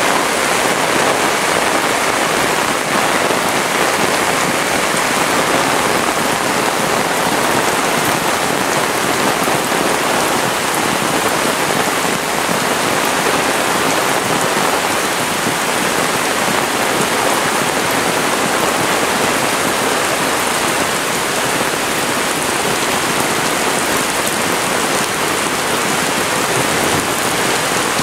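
Heavy rain pouring down: a dense, steady hiss of raindrops with no letup.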